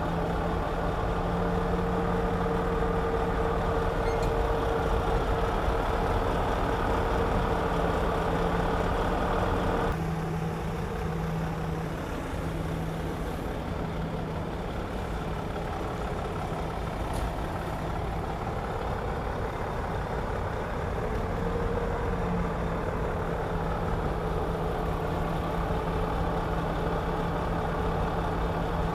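Komatsu D61EX bulldozer's diesel engine running steadily while working. Its note drops and eases about ten seconds in, then climbs back up some twelve seconds later.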